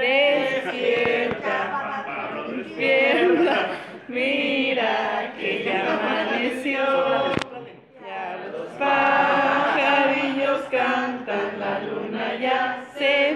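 A small group of people singing together in unaccompanied phrases, the voices wavering and held on long notes. A single sharp click comes about seven seconds in.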